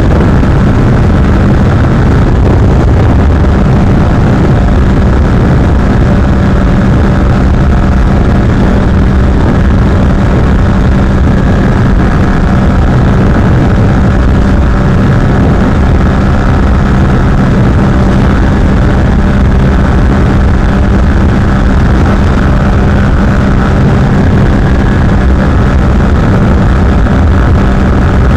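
Yamaha MT-07's 689 cc parallel-twin engine running at steady high revs in sixth gear, cruising at about 187 km/h. It is one even drone that holds its pitch throughout.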